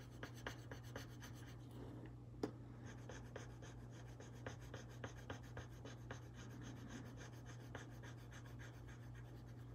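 Faint scratching and ticking of a graphite pencil on paper as short strokes are drawn and shaded, with one sharper tick about two and a half seconds in.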